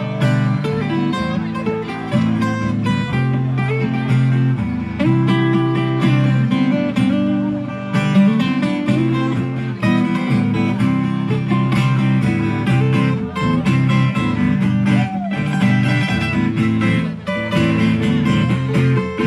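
Acoustic guitar playing an instrumental passage, with notes plucked and strummed continuously.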